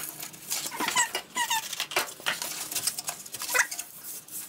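Cardboard template rustling and scraping as it is pressed and slid into place against the bus wall, with a few short high squeaks.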